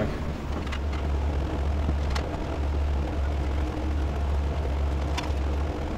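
A steady low hum runs throughout. Over it come three faint light ticks as a steel hard line is fed through a car's underbody and taps against it.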